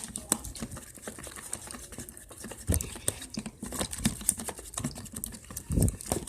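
Spoon stirring slime in a bowl as activator is mixed in: a run of irregular small clicks and wet patter, with a couple of duller knocks.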